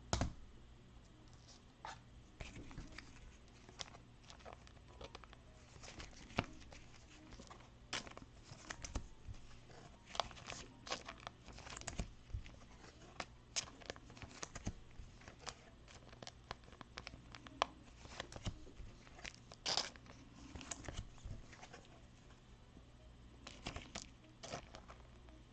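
Thin plastic penny sleeves crinkling as trading cards are handled and slid into them, in a run of short, irregular crackles and small clicks.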